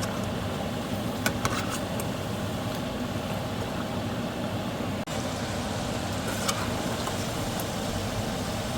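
Cubed potatoes frying in hot oil in a pan, a steady sizzle. A few light clicks of a utensil come about a second and a half in and again at about six and a half seconds.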